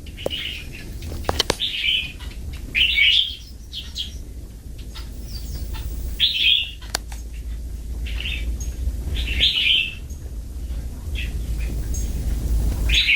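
Pet hill myna giving a series of short, high chirping calls, about one every second or so, with a few sharp clicks among them.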